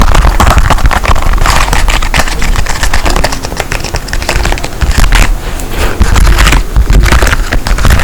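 Close-up handling of fidget toys: a dense, irregular run of clicks, crackles and scraping.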